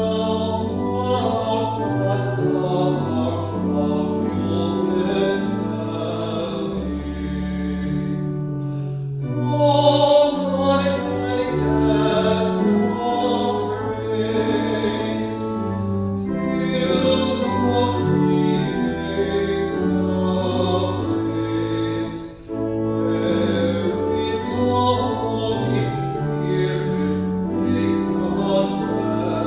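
Church music: voices singing with instrumental accompaniment, held notes over a moving bass line. There is a brief break about 22 seconds in.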